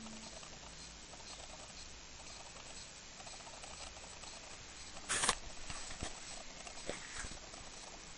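Handling noise from a handheld camera: a faint steady hiss with scattered small clicks and crackles, and one brief louder rustle about five seconds in.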